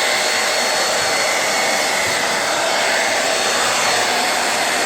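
Braun Satin Hair 1 1800 W hair dryer running steadily on its higher setting, a constant rush of air with a faint high motor whine.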